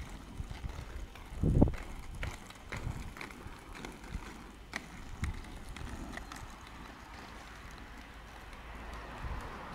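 Inline skate wheels rolling on asphalt, with scattered sharp clicks and a low rumble of wind on the microphone; a loud low thump comes about one and a half seconds in.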